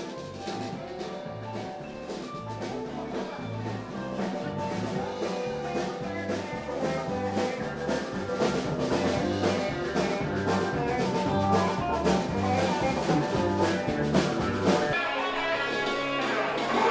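Music with a steady drum beat, walking bass notes and guitar, in a bluesy, jazzy style.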